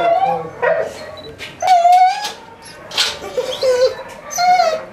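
Shelter dogs in kennels whining and howling, with long held, sliding cries and a few short sharp yips among them.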